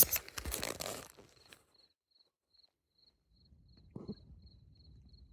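Rustling and knocking handling noise for about a second and a half, then quiet. A faint high-pitched chirp repeats about twice a second throughout, with a low rumble coming back near the end.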